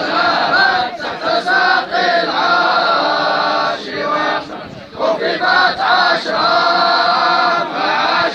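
A large group of men chanting in unison: a devotional praise chant for the Prophet Muhammad, sung in long held phrases with a short break about halfway through.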